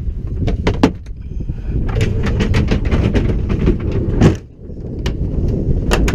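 Steady low rumble with a series of sharp knocks and clatters on top, dipping briefly a little past the middle.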